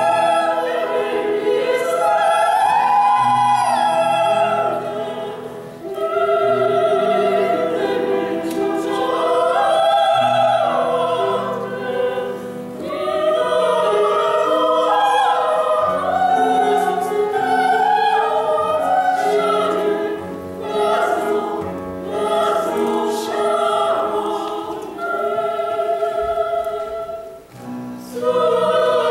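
A group of women singing together in classical operatic style. They hold sustained, gliding phrases, with short breaks between phrases.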